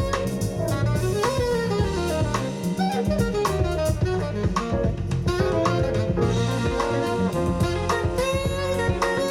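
Jazz recording playing: a saxophone melody over a busy drum kit, played back through a hi-fi system as a cable listening test.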